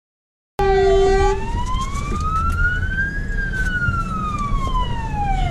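Fire engine siren wailing, slowly rising and falling in pitch, heard from inside the cab over the truck's engine and road rumble. It starts abruptly about half a second in, together with a brief steady tone that stops about a second later.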